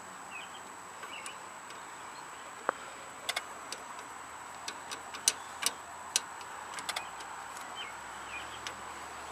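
Sparse, irregular light metallic clicks and ticks at a tractor's starter solenoid as it is worked with a screwdriver; the engine does not crank.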